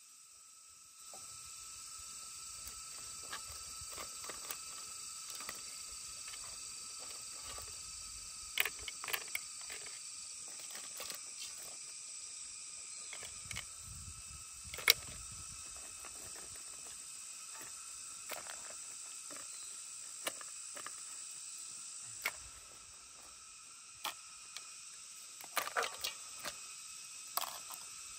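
A steady high-pitched chorus of forest insects. Over it come scattered sharp clicks and cracks as cooked crabs are handled and broken apart; the loudest comes about halfway through, with a quick cluster near the end.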